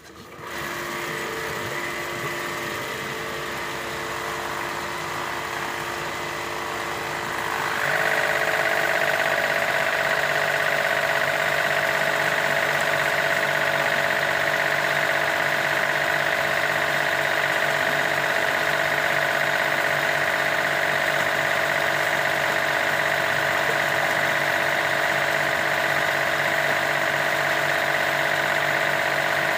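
A pump motor running steadily, pushing flow through a hose to clear a blocked pond drain pipe. About eight seconds in it gets louder, with a stronger, higher hum.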